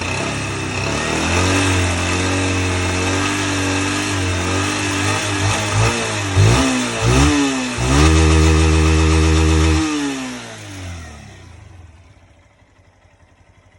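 Single-cylinder 160 cc motorcycle engine revved up and held at raised revs, blipped a couple of times, then let fall back and fading low near the end. The owner suspects an intermittent strange engine noise, appearing since an oil change, comes from the valves or the cam chain.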